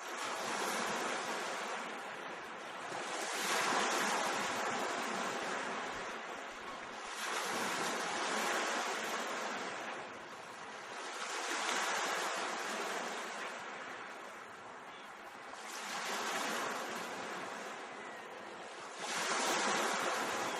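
Mediterranean Sea surf: waves breaking and washing ashore, the rush swelling and fading about every four seconds.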